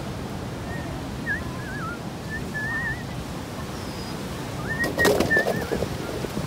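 A songbird singing short warbled phrases again and again, with a higher down-slurred note near the middle, over a steady rushing background noise. A brief burst of knocks and rustling about five seconds in is the loudest moment.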